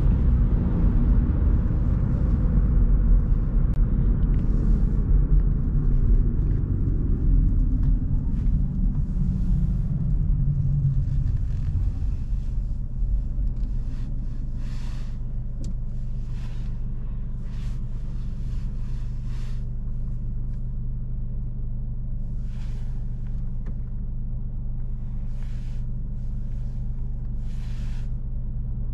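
Cabin sound of a SEAT Ibiza's 1.0 MPI three-cylinder petrol engine as the car slows from about 50 km/h almost to a stop: the road and engine rumble fades away over about twelve seconds, then the engine idles with a steady, even hum.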